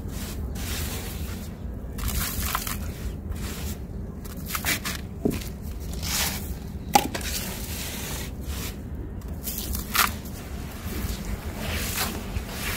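Clumps of gritty, sand-like powder dropping into a plastic tub of muddy water with scattered splashes and plops, then hands squishing and crumbling the wet grit near the end.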